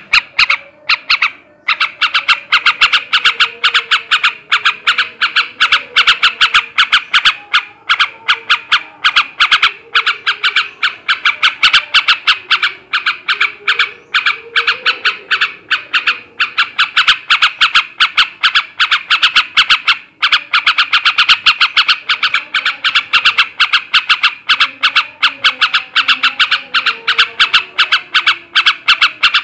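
Male sooty-headed bulbul (trucukan) calling in a fast, nearly unbroken chatter of short notes, many each second, with a short break about twenty seconds in.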